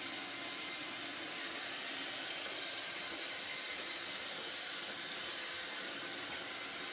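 Robot vacuum cleaner running: a steady whirring hiss from its motor and brushes.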